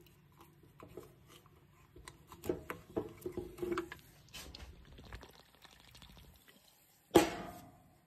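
Aluminium beer can handled on a wooden bench: light clicks of the pull tab and liquid sloshing inside as it is picked up and moved, then one sudden loud knock about seven seconds in.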